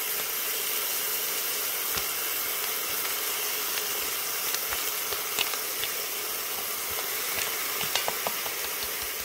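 Steady sizzle of a seared venison shank in the still-hot stainless Instant Pot insert, just off sauté mode, with a few light ticks as gravy powder is shaken from a packet onto it.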